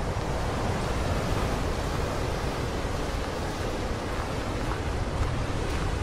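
Ocean surf breaking and washing over a rocky shore, a steady wash of noise with a low, uneven wind rumble on the microphone.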